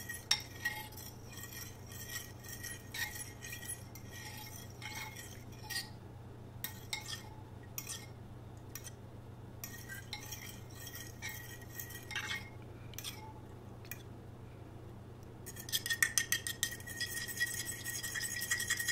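A liquid batter of milk, beaten eggs and cream being stirred in a bowl, a utensil clinking against the bowl. The taps are light and scattered at first, then come fast and louder from about three seconds before the end as the batter is beaten quickly.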